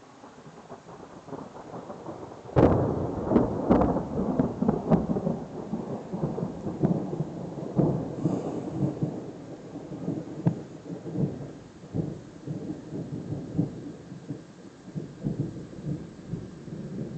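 Thunder: a rumble builds, then a sharp crack about two and a half seconds in, followed by long rolling rumble with repeated crackles that slowly fades.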